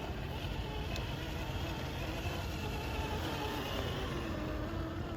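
Traxxas TRX-4 Land Rover Defender RC crawler's electric motor and gearbox whining, the pitch wavering up and down with the throttle.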